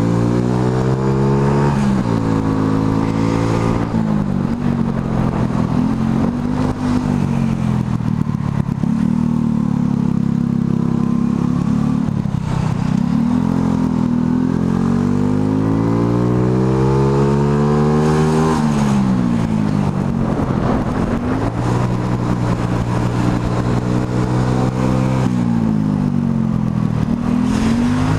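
Motorcycle engine running under way, heard from the bike itself. Its pitch climbs under acceleration and drops as the rider shifts or eases off, several times over, with steady cruising stretches between.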